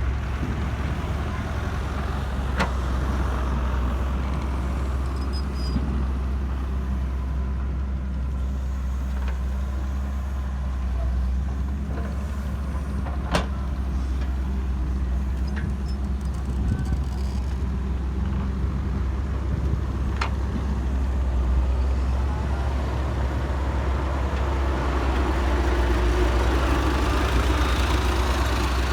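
Excavator's diesel engine running steadily as the machine works, with three sharp knocks spread through, and the engine growing louder near the end.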